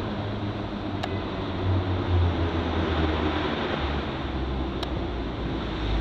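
Shanghai maglev train gliding in along the platform, a steady rush of moving air with a low hum that drops in pitch as the train slows. Two faint ticks sound, about a second in and near the end.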